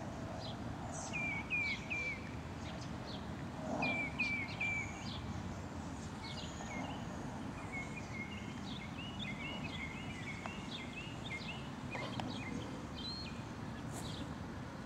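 Birds chirping in short, repeated call phrases over a steady background of outdoor noise.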